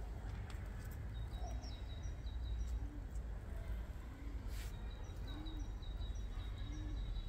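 Outdoor ambience: small birds chirping in quick runs of short notes over a steady low rumble, with a low call repeating about every second and a half.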